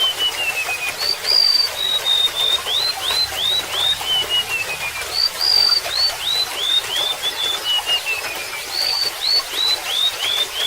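Golden-bellied gerygone singing over trickling water. Each phrase is a high thin whistle, then a run of downslurred notes, then a falling trill, repeated about every four seconds.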